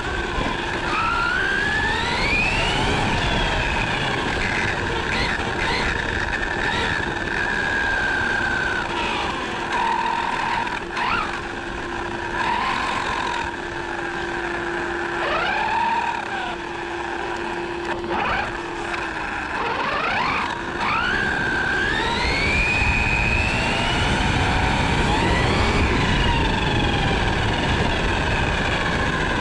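1/8-scale RC truggy's electric motor and drivetrain whining, the pitch rising and falling over and over with the throttle, over a steady rumble of the tyres on tarmac.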